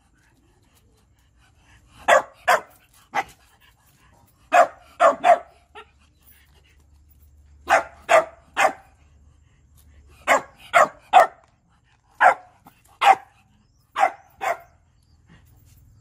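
A Shiba dog barking in short runs of two or three sharp barks, about sixteen in all, with brief pauses between runs: barking to demand food.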